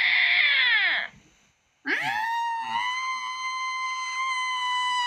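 A young woman's high-pitched vocal squeal: a short one that rises and falls, ending about a second in, then after a brief pause a long, steady, shrill held note.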